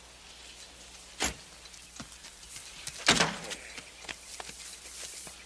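Two thumps against a car: a sharp knock about a second in, then a louder slam about three seconds in, with lighter scuffs and clicks between.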